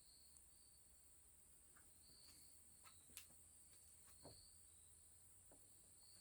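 Near silence: faint room tone with a few faint small clicks.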